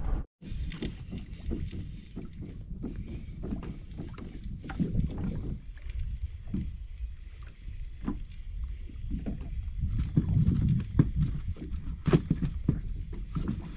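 Water slapping against a pedal kayak's hull, with irregular low knocks and thuds.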